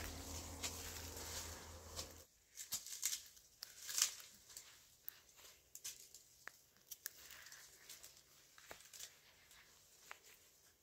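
A steady low hum that cuts off abruptly about two seconds in, with faint scattered clicks and rustling.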